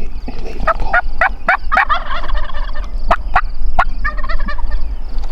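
Wild turkey gobbler gobbling twice, about two seconds in and again near four seconds, with short sharp calling notes before and between the gobbles.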